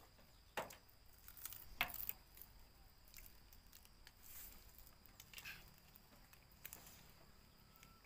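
Near silence with soft mealtime clicks of metal spoons against dishes, two sharper ones in the first two seconds and a few fainter ones later.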